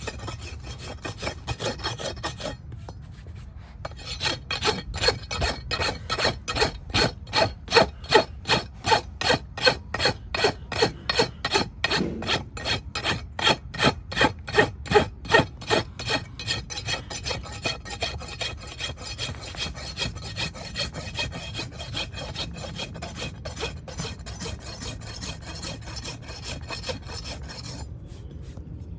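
Farrier's rasp filing a hoof in rapid back-and-forth strokes, about two to three a second. There is a short pause about three seconds in, and another near the end.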